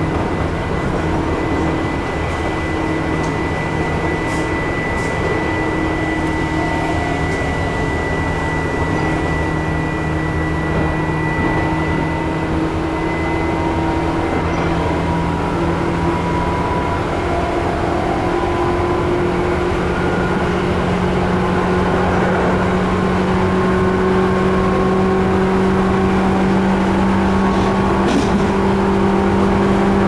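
Running noise inside a Tobu 9000-series chopper-controlled electric motor car: the traction motors whine steadily, with the whine rising slowly in pitch as the train gathers speed. Wheels on rail make a steady rumble, with a few brief clicks.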